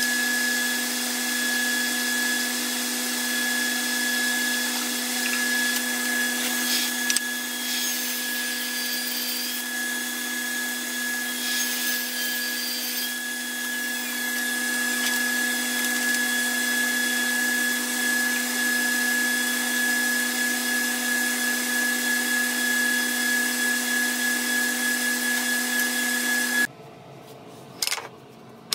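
Table saw running with a steady whine while walnut boards are ripped into strips. The sound cuts off sharply near the end, leaving a quieter background with a couple of light knocks.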